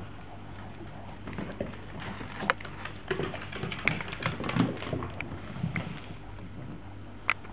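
Dogs' claws clicking and scuffling on a wooden floor as small dogs scamper and tussle, a quick irregular flurry of clicks through the middle.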